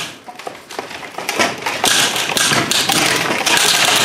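Hollow PVC pipe struts of a geodesic dome frame knocking and clattering together as the frame is pulled down and starts to collapse. The knocks come sparsely at first, then grow denser and louder into a continuous clatter near the end.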